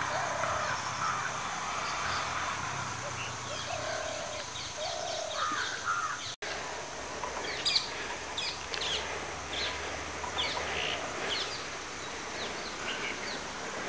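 Outdoor forest ambience of birds calling. The first half has a steady high-pitched drone and repeated short mid-pitched calls. The sound breaks off abruptly about six seconds in, and then comes a busy scatter of short, high bird chirps.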